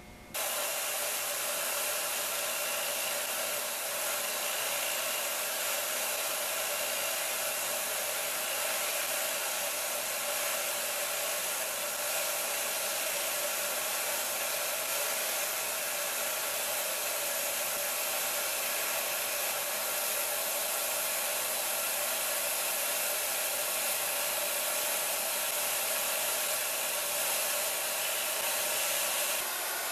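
Mini lathe running at steady speed with a whirring motor, starting about half a second in, while birch plywood stock spins on it and is turned down and sanded smooth.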